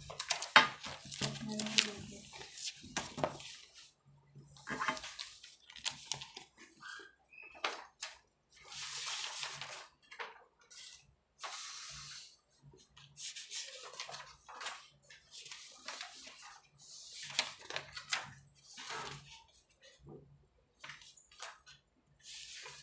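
Sheets of a thick paper document being turned and shuffled, in repeated rustling sweeps with short pauses between, along with the light scratching and tapping of a pen signing the pages.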